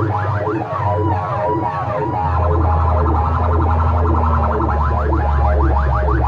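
Loud DJ music played through big speaker-box stacks: fast, repeating siren-like sweeping tones over a heavy bass drone that swells about two seconds in.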